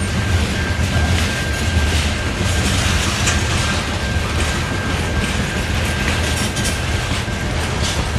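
CSX freight train's covered hopper cars rolling past, their steel wheels clacking over the rail joints at irregular intervals over a steady low rumble, with a faint steady high-pitched whine from the wheels.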